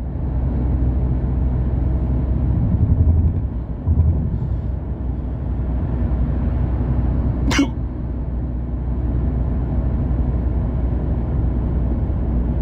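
A single sharp hiccup about seven and a half seconds in, over the steady low rumble of a car's cabin, which swells briefly around three and four seconds in.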